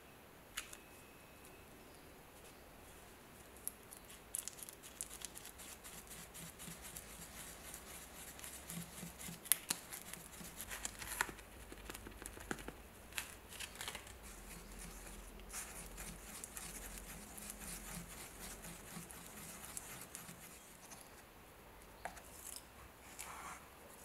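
Faint, dense crackling and scraping on paper as sawdust is tipped onto two-part epoxy and worked into it, a single click about half a second in.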